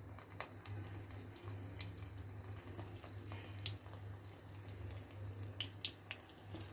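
Thread-tied stuffed bitter gourds frying in hot oil in a kadai: faint, scattered crackles and pops as more gourds are added.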